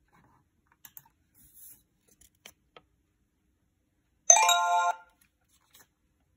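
A short electronic chime of several steady tones from the laptop, about four seconds in and lasting under a second: the Clever badge login accepting the scanned QR code.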